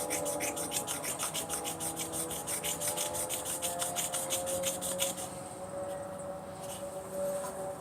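Hair clipper blade rubbed back and forth on a wet 1000-grit water stone in quick, even scraping strokes, about six a second, which stop about five seconds in.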